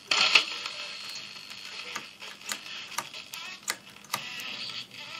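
HMV C13C valve radio's loudspeaker bursting into static and crackle as its wave-change switch is worked, with sharp clicks scattered throughout. The sound cuts in and fades away again, the sign of dirty switch contacts.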